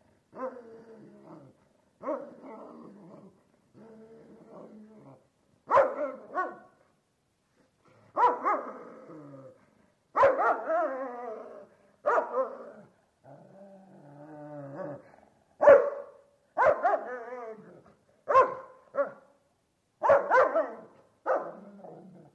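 A large dog barking and growling in rage: a dozen or so harsh barks and snarling growls, each burst cut off by a short silent gap.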